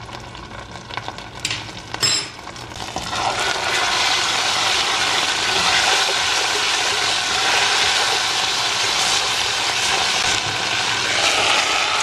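Chopped garlic and salt frying in oil in a pot, stirred with a spatula. After a knock about two seconds in, the sizzling grows louder and stays steady.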